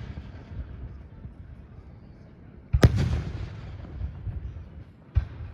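Fireworks going off: one loud boom about three seconds in with a rolling, echoing tail, and a sharper bang near the end.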